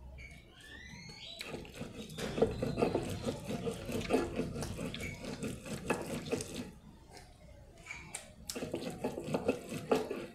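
Stone roller grinding wet red chile paste on a stone metate: a run of rough, wet scraping strokes back and forth, pausing briefly about seven seconds in and then starting again.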